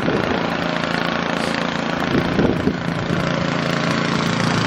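Snowblower engine running steadily at a constant speed, loud.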